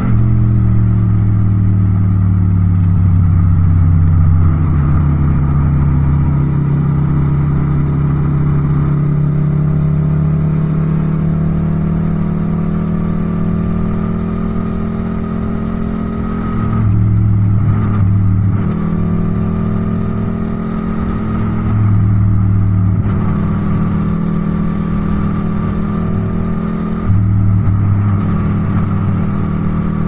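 Yamaha MT-07's 689 cc parallel-twin engine running under way at fairly steady revs. The note sinks slowly through the first half, then changes briefly three times at about five-second intervals in the second half, each time with a small rise in loudness.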